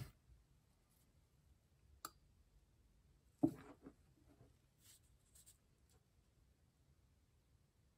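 Near-silent room with the faint scraping of a small hand iron pressed and slid over a paper overlay on a comic cover during foxing treatment. There is a light click about two seconds in and a short knock about three and a half seconds in.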